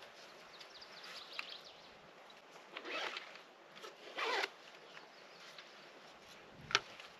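A zipper pulled in two quick rasps, the second longer and louder, then a single sharp click near the end.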